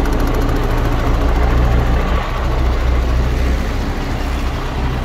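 Six-cylinder diesel engine of a 2010 MAN TGS 26.440 truck idling steadily.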